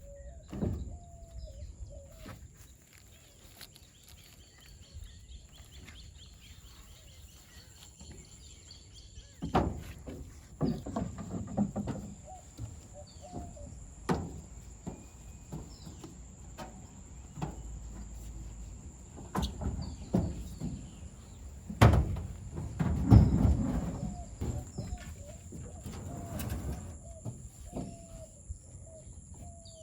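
Outdoor ambience: a steady high insect drone and short bird chirps, broken by scattered knocks and clatter, the loudest a few seconds before the end.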